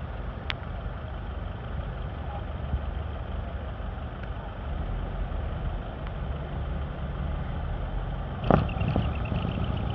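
Decorated trucks' engines running with a steady low rumble, and a short, sharp, louder sound about eight and a half seconds in.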